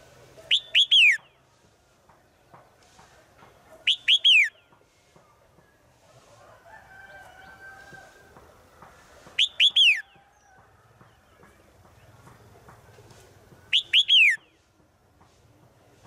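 Red-whiskered bulbul calling: four loud, short phrases of three quick falling notes each, a few seconds apart. It is given as a female's call to draw males.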